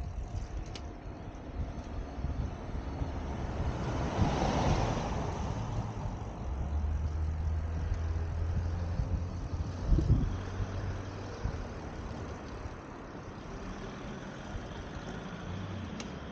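Road traffic: a motor vehicle passes, loudest about four to five seconds in, followed by a low engine drone for several seconds. There is a single thump about ten seconds in.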